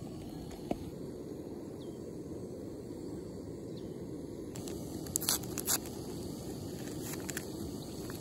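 Camping stove burner running steadily under a pot of water not yet at the boil, a low even rushing. A few brief crinkling clicks of handling come a little past the middle.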